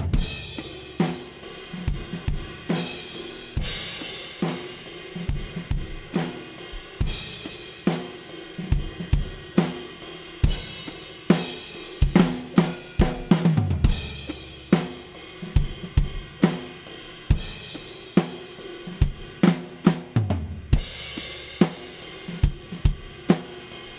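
A multitrack drum kit recording playing a steady groove of kick, snare and hi-hat, with cymbal crashes every few seconds. It plays back through Studio One's stock compressor across the drum submix, whose attack and release are being changed.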